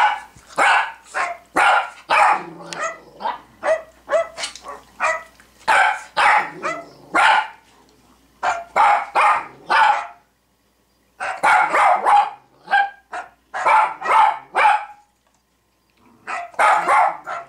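Cavalier King Charles Spaniel barking in quick runs of loud, sharp barks, about two or three a second, pausing briefly twice.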